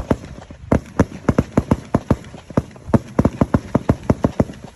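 Fireworks going off in rapid runs of sharp bangs, about six a second, with brief pauses between the runs.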